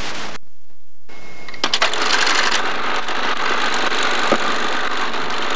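Steady tape hiss that drops out briefly, then a few sharp clicks about a second and a half in and a steady hissing clatter: a movie projector running a reel of film.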